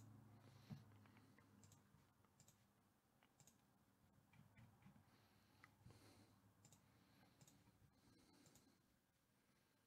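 Near silence: faint room tone with scattered, irregular soft clicks.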